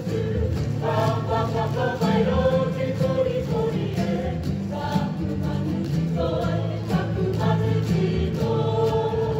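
A group of voices singing a Māori poi song in chorus, with guitar accompaniment and a steady beat about once a second.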